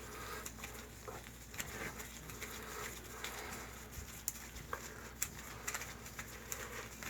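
Faint, scattered small clicks and taps of hands and tools working a rubber Fernco coupling and hose clamp onto a sewer pipe, over a low steady hum.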